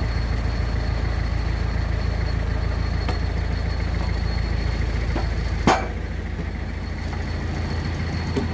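Forestry tractor engine idling steadily, with light knocks of logs being handled and one sharp wooden knock about five and a half seconds in, as a log is dropped onto the load on the trailer.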